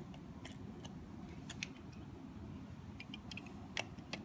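Faint scattered clicks and taps of toy cars being handled, a small Lightning McQueen car knocking against a larger plastic one, over low room noise. The clearest taps come about a second and a half in and just before the end.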